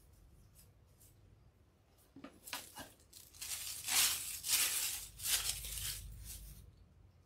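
Clear plastic wrapping crinkling as it is pulled off a bundle of curly ribbon picks: a run of rustling bursts starting about two seconds in, loudest near the middle.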